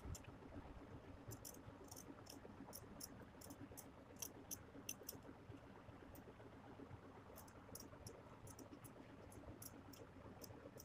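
Faint, irregular clicks of scissors snipping through a small piece of stiff blouse canvas (interfacing).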